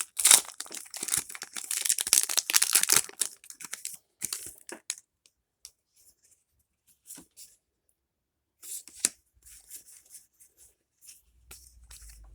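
Foil Pokémon TCG booster pack being torn open: a dense crinkling rip over the first three seconds or so, followed by scattered light rustles and taps as the wrapper and cards are handled.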